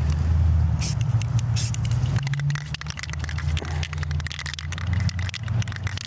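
An engine running steadily nearby, a low hum with a few crackles and clicks, and two short hisses about a second in.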